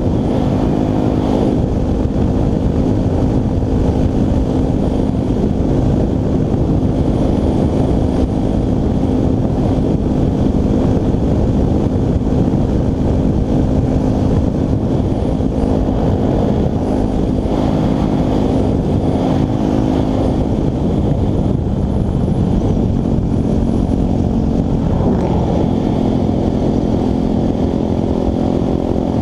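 Dirt bike's single engine running at steady cruising speed, heard from the rider's helmet with a rush of wind over it. Near the end the engine note shifts in pitch as the revs change.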